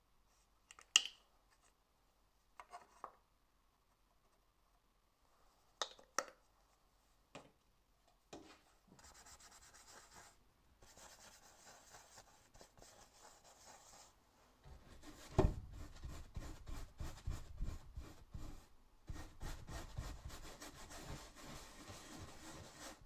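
A flat bristle paintbrush scrubbing paint across a stretched canvas in repeated rubbing strokes, starting about halfway through. Before that, a few sharp clicks and taps, the loudest near the start.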